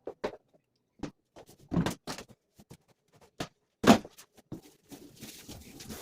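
Scattered knocks, clicks and bumps of objects being handled in a small room. The loudest is a knock about four seconds in, and a short hiss comes near the end.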